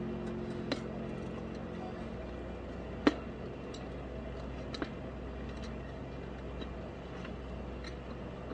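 Scattered sharp clicks and clinks of metal tire irons against a motorcycle wheel rim as the tire bead is levered off, over a steady low hum; the loudest click comes about three seconds in.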